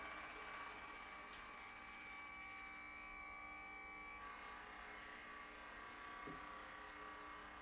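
Quiet electronic glitch drone: several steady buzzing tones over hiss, with a sharp click about a second in and the highest tone cutting off suddenly about four seconds in.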